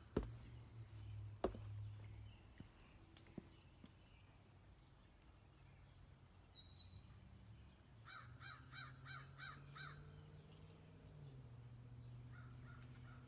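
Faint outdoor ambience with crows cawing: a quick run of about seven caws a few seconds before the end, and a shorter run near the end. Small birds give a few brief high chirps, over a steady low hum.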